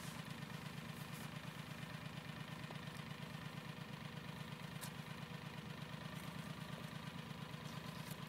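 An engine idling steadily with a fast, even low throb.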